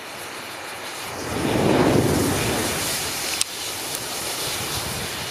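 A mass of safety matches flaring up at once: a rushing whoosh of fire that swells to its loudest about two seconds in and then stays strong, with a single sharp crack a little later.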